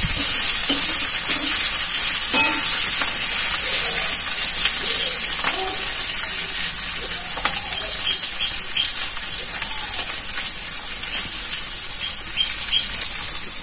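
Capsicum, tomato and green chillies sizzling steadily in hot oil in a metal wok, with a spatula scraping the pan a few times in the first couple of seconds.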